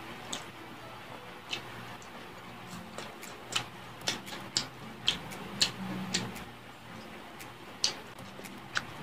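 Close-miked eating sounds of fried chicken: sharp, irregular clicks and smacks from chewing and from fingers pulling the chicken apart, coming thickest in the middle.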